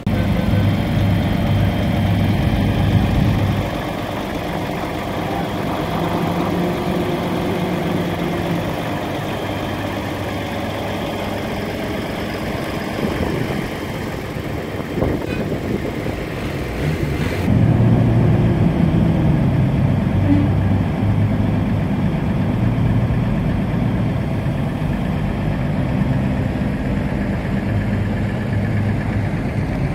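An engine running at idle: a steady low drone that shifts a little in pitch and level now and then.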